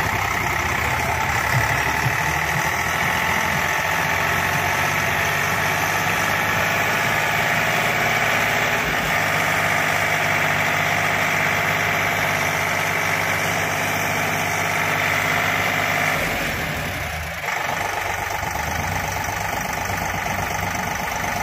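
Eicher 485 tractor's three-cylinder diesel engine running hard and steady under heavy load, straining to drag a sand-laden trolley stuck in loose sand with its front wheels lifted off the ground. The sound drops for a moment about sixteen seconds in, then carries on.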